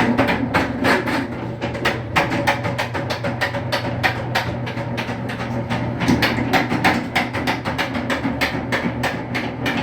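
Electric drain-cleaning machine running its cable down a sewer line: a steady motor hum under rapid, irregular clacking of the spinning cable.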